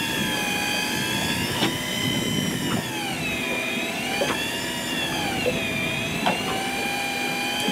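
Electric fishing reel's motor whining as it winds in line against a heavily pulling lingcod, its pitch slowly rising and falling with the changing load. A few light clicks sound over it.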